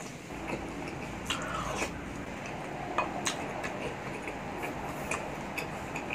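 Wet chewing of balut in chili sauce, with a wooden spoon clicking and scraping against a ceramic plate several times as it scoops up sauce.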